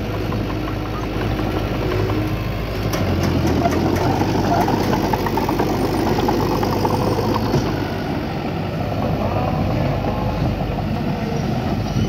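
Heavy diesel engine of earthmoving equipment running steadily, working harder from about three seconds in.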